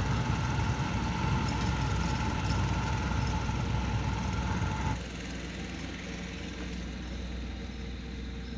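Propane foundry burner firing into the furnace with a steady rushing noise. About five seconds in it cuts off abruptly, leaving a quieter steady hum.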